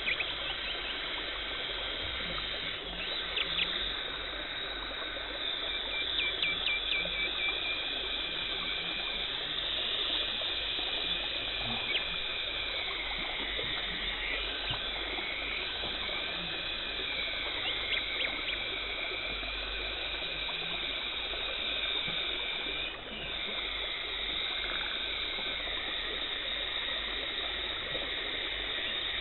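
Dental teeth-cleaning instruments at work: a steady hiss and gurgle of water spray and suction, with a high whine that wavers and a few light clicks.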